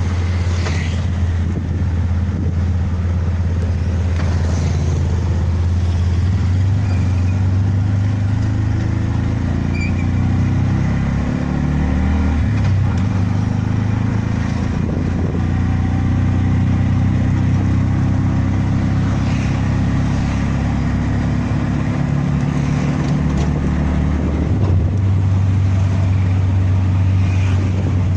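A vehicle engine running steadily while riding, its pitch shifting a few times, around the middle and again near the end.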